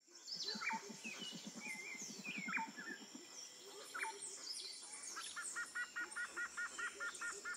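Several wild birds calling at once in a forest chorus: scattered chirps and falling whistled notes, a rapid low pulsing call for the first three seconds, and a fast, evenly repeated two-note call, about six a second, over the last two and a half seconds.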